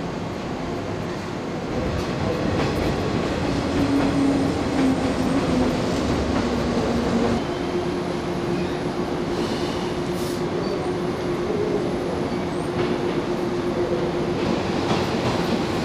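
JNR-type express electric train (583/485 series) standing at a platform: a steady mechanical rumble with a droning hum that shifts to a slightly higher pitch about seven seconds in. The rumble gets louder about two seconds in, and there is a brief hiss around ten seconds.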